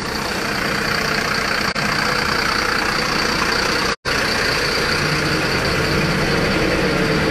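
Fire engine's diesel engine running steadily at idle, heard close up, with a steady rumble. It breaks off for an instant about four seconds in.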